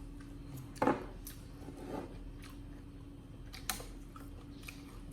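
Monkeys eating: scattered crunching and chewing clicks over a faint steady hum, the sharpest click a little under a second in and another a bit after halfway.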